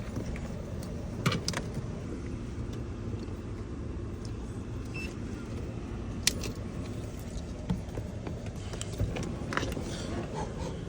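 Keys jangling and clicking as they are handled, with several sharp clicks spread through, over a steady low rumble.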